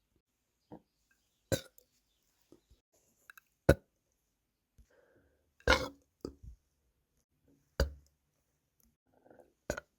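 A person burping, a series of short sudden burps about one every second or two, the longest a little past halfway. The burps come from a bloated stomach after overeating and are bringing relief from nausea.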